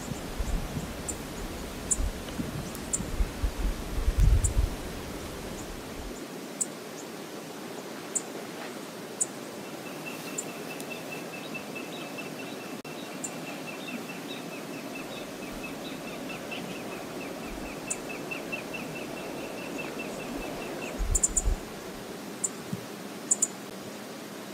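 Outdoor ambience with a steady hiss and low rumbles, as of wind on the microphone, during the first six seconds and briefly near the end. A small bird sings one long, rapid trill of evenly repeated notes from about ten seconds in to about twenty-one seconds, with scattered high chips throughout.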